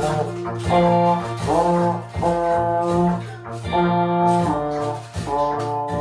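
Euphonium playing a children's-song melody in held notes, a new note about every half second to second, over a low accompaniment. Toy maracas are shaken along with it.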